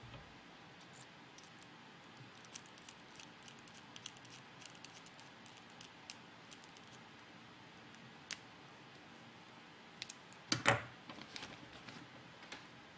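Small screwdriver turning a small screw into plastic robot head parts, with scattered light clicks and ticks of the bit and the handled plastic. A louder clatter of several clicks comes about ten and a half seconds in.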